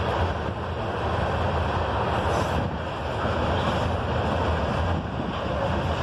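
Freight train cars rolling across a trestle: a steady rumble of the passing train.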